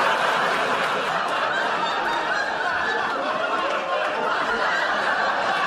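Sitcom studio audience laughing in a steady wave after a punchline.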